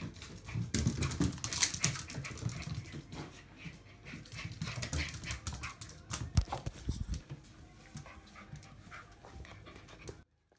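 Jack Russell Terrier puppy scampering about on wooden flooring: a busy patter of claw clicks and paw thuds, with a louder knock about six seconds in. The sound cuts off suddenly near the end.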